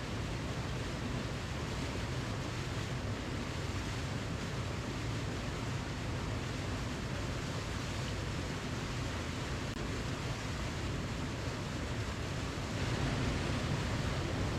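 Waterfall: a steady rush of falling water with a deep rumble underneath, swelling a little for a couple of seconds near the end.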